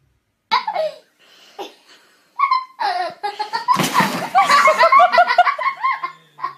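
A person laughing hard, high-pitched, in quick repeated bursts that grow louder and faster about halfway through.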